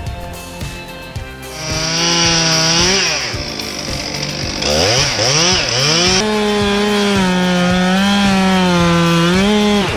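Two-stroke chainsaw running at high revs, starting about a second and a half in. Its pitch sags and climbs back a few times, as under load while cutting wood.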